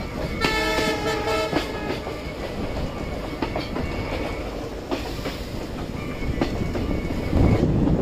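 Passenger train carriage running, with a steady rumble and irregular clicks of the wheels over the rails. The locomotive's horn sounds once for about a second near the start.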